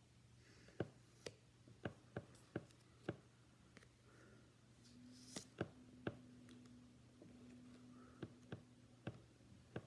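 Trading cards being handled: a string of light, sharp clicks and taps at an irregular pace, about one or two a second, over a faint steady hum.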